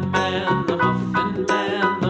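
Background music: a tune of short repeated notes over a steady beat.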